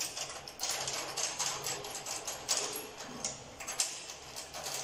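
A drum key loosening the tension rods on a PDP bass drum: irregular small metallic clicks and rattles as the rods are turned out.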